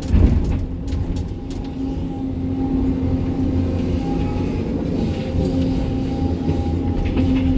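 Sany SY305 excavator's diesel engine running under load with a steady hydraulic whine, heard from the operator's cab, with a few knocks and clatters from the bucket working stony ground, mostly in the first second or so and again near the end.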